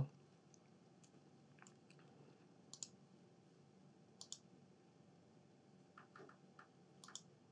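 Faint computer mouse clicks, a few scattered single clicks and quick pairs, over near-silent room tone.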